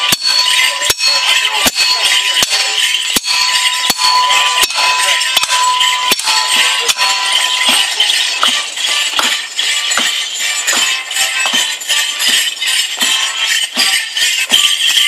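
Folk band playing a morris dance tune with a drum, with regular sharp clacks of wooden sticks that the dancers strike together in time.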